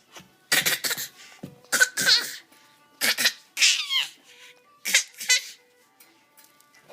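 A small child's fake coughs: about four pairs of short, sharp coughs over five seconds, one near the middle drawn out into a squeaky voiced sound that falls in pitch.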